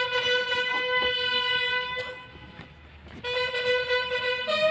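Military bugle sounding a parade call in long held notes: one note for about two seconds, a short break, then the same note again, stepping up to a higher note near the end.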